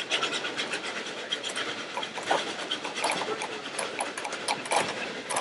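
Geared Shay steam locomotive train under way, a dense steady clatter of clanks and knocks over a hissing rush of running noise.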